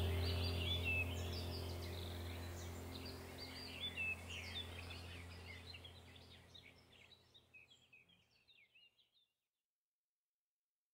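Birds chirping over a low steady hum, the whole sound fading out over about the first six seconds.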